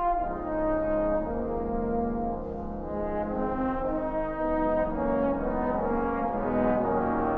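Trombone choir playing long held chords over low bass notes, the harmony shifting every second or so.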